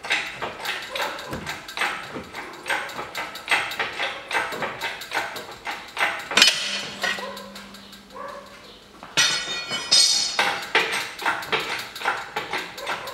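Chain hoist lifting an engine out of the engine bay: quick repeated metallic clicks and chain links clinking, a few per second. The clicking pauses just past the middle, then comes back with a denser rattle.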